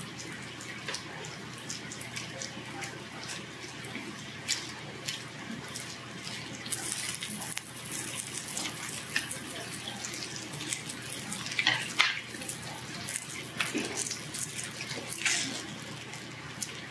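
Pork belly and garlic sizzling on a tabletop grill plate: a steady hiss with scattered crackles and clicks.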